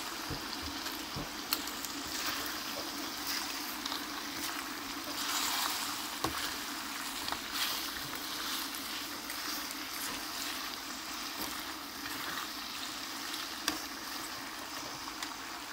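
Meat sizzling and bubbling in a steel wok, with a metal spoon scraping through it and a few sharp clinks against the pan as it is stirred.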